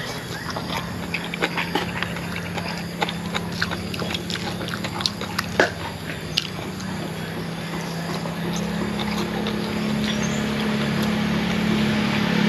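Close-up eating sounds: a person chewing papaya salad and noodles and smacking his lips, with many sharp clicks over the first half. A low steady hum grows louder through the second half.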